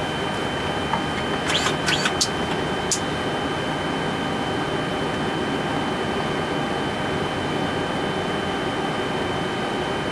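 Steady hum and thin high whine in a Boeing 747-400 freighter's cockpit during engine start, with engines 3 and 4 spooling up and the APU running. A few sharp clicks come between about a second and a half and three seconds in.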